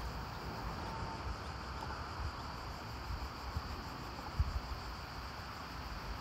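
Outdoor ambience with wind buffeting the microphone in irregular low rumbling gusts, the strongest a little over four seconds in.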